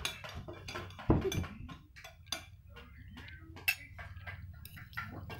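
Metal spoon clinking and scraping against a plate in irregular taps, the loudest about a second in.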